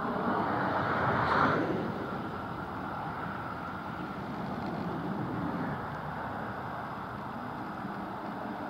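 Two Class 37 diesel-electric locomotives running, their English Electric V12 engines working steadily as they move with a single flask wagon. The engine sound swells loudest about a second and a half in, then settles to a steady running note.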